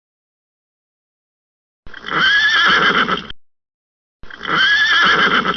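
Horse neighing twice, each whinny about a second and a half long with a pitch that rises and then falls. The calls come about two and a half seconds apart, the first about two seconds in.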